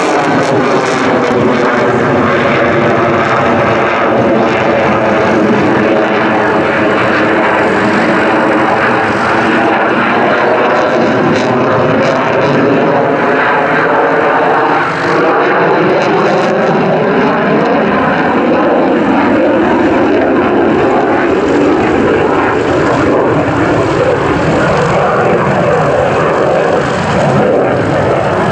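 F-16 fighter jet's turbofan engine running at high power through aerobatic manoeuvres: a loud, continuous jet roar whose tone sweeps slowly down and back up as the jet moves across the sky.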